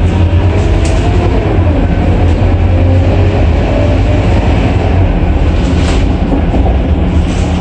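Scania K230UB city bus under way, heard from inside the passenger cabin: its engine and driveline give a loud, steady low drone with a faint whine that drifts up and down. A few brief rattles from the body come through, about a second in and again near the end.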